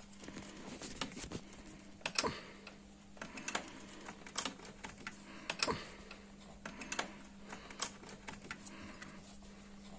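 Irregular clicks and knocks from a white plastic smart plug and power cables being handled, over a faint steady hum.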